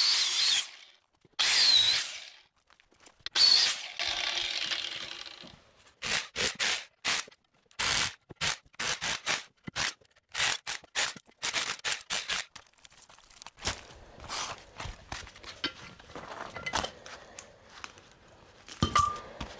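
A power tool fitted with a wrecking blade, run in short bursts against an electric motor's stator to cut and push out the copper windings, with metal scraping. It makes three longer bursts, then a quick run of short stop-start bursts with a thin high whine, then quieter scraping and knocks near the end. The blade is not slicing through the windings well.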